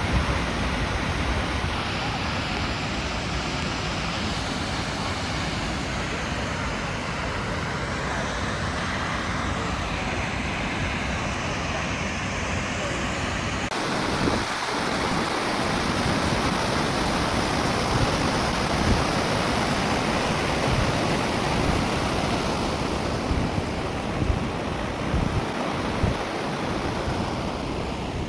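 Steady rushing roar of a waterfall, with wind buffeting the microphone. About halfway through the rush turns abruptly brighter and a little louder.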